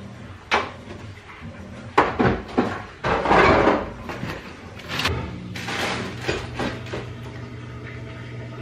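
Boxes and supplies being pulled down from a garage shelf and handled: a string of sharp knocks and clatters with rustling, loudest about three seconds in. A steady low hum comes in about halfway through.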